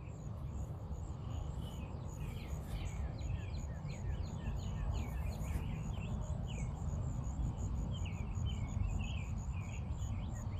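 Small birds chirping in quick, repeated short calls over a steady low background rumble.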